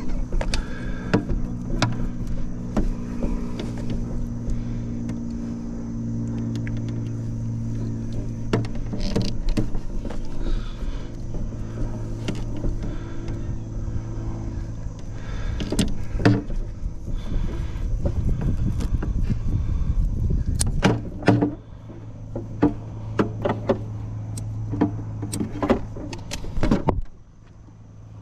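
An engine running steadily, with repeated sharp knocks and clanks of work on top. The engine sound drops away suddenly about 21 seconds in, comes back, and drops again near the end.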